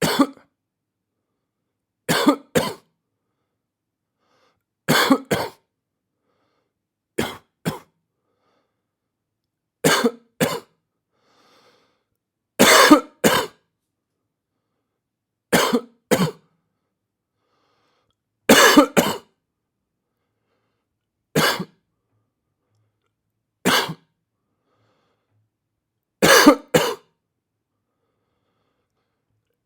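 A person coughing in short bouts of one or two coughs, about every two to three seconds, with silence between.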